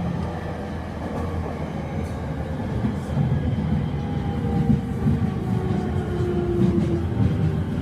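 Rinkai Line 70-000 series electric train heard from inside the car, with renewed traction equipment: the motor whine falls steadily in pitch as the train slows, over a continuous rumble of the wheels on the rails.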